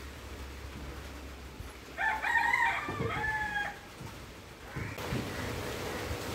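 A rooster crowing once, starting about two seconds in and lasting almost two seconds.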